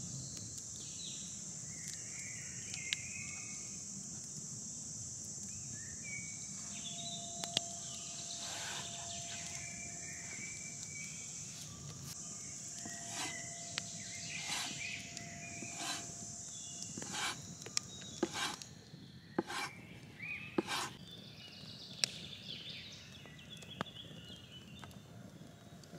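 Knife strokes chopping rolled pasta dough against a wooden board: a run of sharp knocks, sparse at first and closer together near the end. Underneath is a steady high insect buzz with scattered bird chirps, and the buzz stops about two-thirds of the way through.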